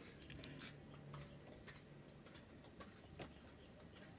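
Near silence with a few faint, scattered ticks: multimeter probe tips touching and sliding over the solder joints of a circuit board.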